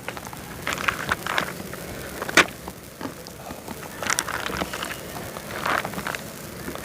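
Knife and hand work while a tuna is cut up: scattered clicks, knocks and scrapes, with one sharp knock about two and a half seconds in.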